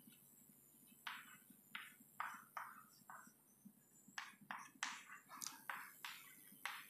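Chalk scratching on a chalkboard as words are written: a string of short, faint, irregular scratchy strokes, starting about a second in.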